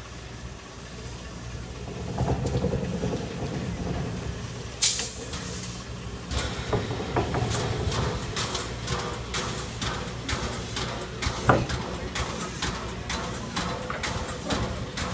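Norfolk & Western J-class 611 steam locomotive standing on a turntable: a steady low rumble, a sudden loud burst of hissing about five seconds in, then a quick run of metallic ticks and clanks, one louder clank near the middle.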